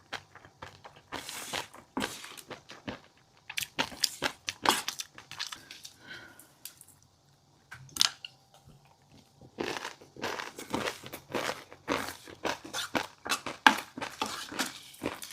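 Close-miked eating of fish roe and crunchy seafood: quick crisp pops and crunches come in clusters, with a short lull just past the middle.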